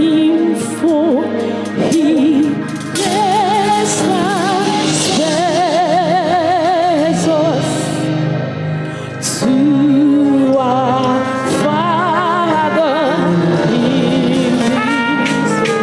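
Gospel music with singing: a voice holding long notes with wide vibrato over a steady instrumental accompaniment.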